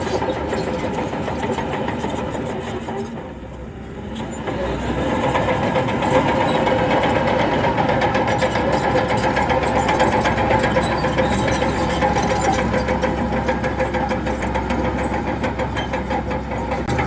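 Heavy diesel engine of earthmoving machinery running steadily. It drops off briefly about three seconds in, then comes back louder and holds a steady drone.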